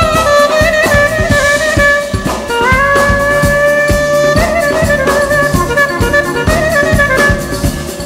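Clarinet playing a solo melody in a folk-song instrumental break, gliding up to a long held note about three seconds in, over a steady drum rhythm.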